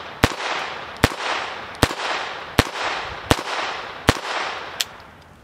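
High Standard Dura-Matic .22 LR semi-automatic pistol fired in steady slow fire: six sharp shots about three-quarters of a second apart, each ringing out in a short echo, then a fainter seventh near the end.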